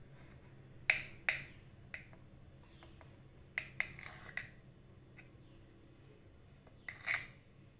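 Kitchen knife cutting through soft steamed dhokla, its blade clicking and scraping against the ceramic plate beneath in a string of short, sharp, irregular clicks, with a few paired clicks close together.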